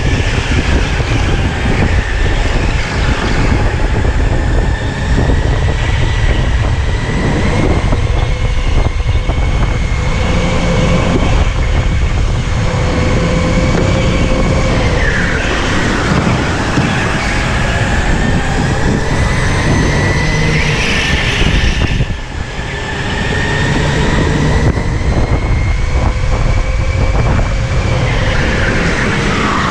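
Electric go-kart motor whining at racing speed, its thin tone falling twice (about halfway and near the end) and climbing again in between as the kart slows and speeds up, over a loud low rumble.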